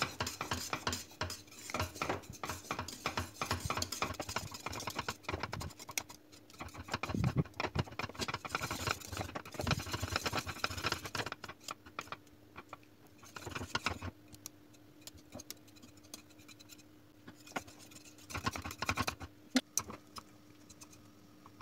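Wire whisk beating thick, cooked milk pudding in a stainless steel pot: rapid scraping and clicking of the whisk against the pot, in spells with short pauses. A faint steady hum runs underneath.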